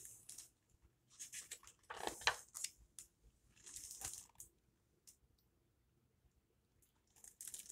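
Pages of a large hardcover picture book being turned and handled: the paper rustles in a few short bursts.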